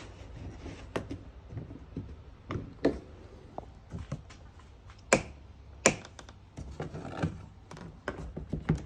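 Scattered clicks, taps and knocks of plastic body panels and catches being handled as the bonnet over an Aixam microcar's engine is opened, with two sharper clicks about five and six seconds in.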